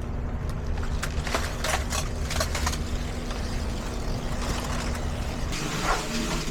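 A vehicle engine running steadily with a low rumble, with scattered light clicks and knocks about a second to three seconds in. Near the end the rumble drops away and a hiss comes up.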